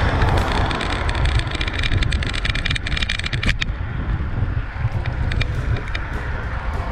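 Wind buffeting the microphone of a moving bicycle's camera, a heavy steady rumble, with road noise. A brighter hiss full of rapid clicks stops about three and a half seconds in.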